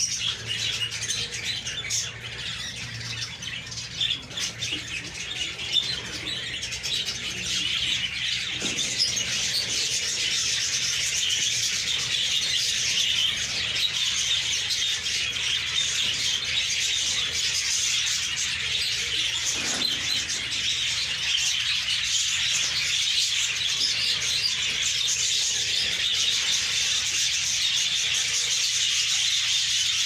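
A flock of budgerigars chattering together: dense, continuous high-pitched warbling and chirping from many birds at once, growing fuller and louder after about eight seconds.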